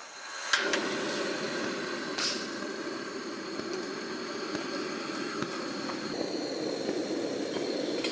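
Camping gas stove being lit: a sharp ignition click about half a second in and another about two seconds in, then the gas burner flame hissing steadily, growing fuller around six seconds in as the flame is turned up.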